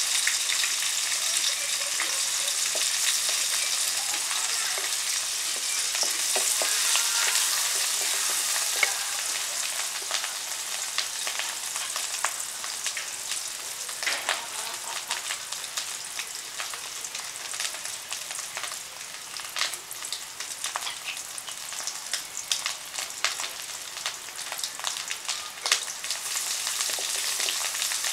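Yellow spice paste sizzling and bubbling in oil in an aluminium pot, a steady hiss that eases off a little after the first several seconds. A wooden spatula stirs now and then, with scattered short scrapes and knocks against the pot.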